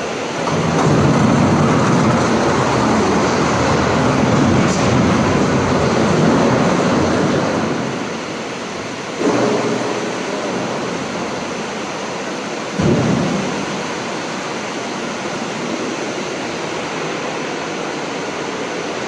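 Steady loud rumbling noise in a stone warehouse, louder for the first several seconds, with two sharp thumps about nine and thirteen seconds in.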